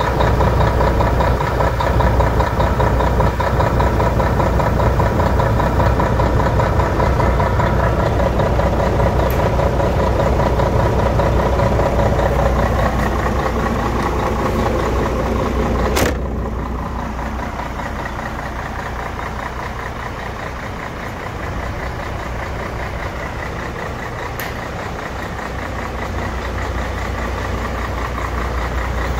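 MAN TGA 18.410 truck's straight-six diesel engine idling steadily, loud and close at first. A single sharp knock about halfway through, after which the engine sounds quieter.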